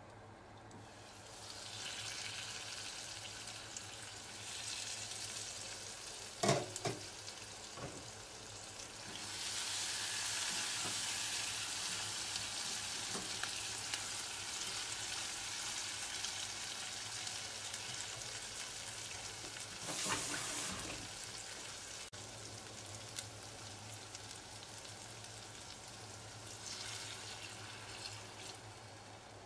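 Shrimp sizzling as they fry in oil and spice paste in a nonstick pot, stirred with a spatula. The spatula knocks sharply against the pot twice along the way, and the sizzle eases off near the end.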